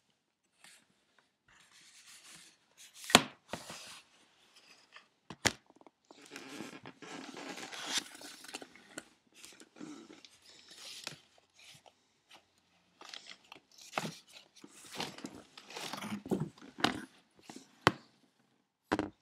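Irregular scratching, rustling and scuffing against cardboard, broken by several sharp knocks, as a cat shifts about inside a cardboard box.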